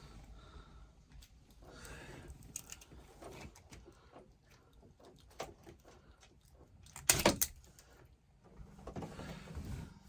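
Hands working among wiring and tools: scattered light clicks and rustles, with one short loud clatter about seven seconds in. A low steady hum starts near the end.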